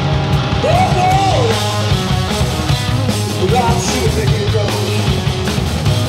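A blues-rock trio playing live: fuzz electric guitar, bass guitar and drums, with a lead line that slides up in pitch and back down, once early on and again a few seconds in.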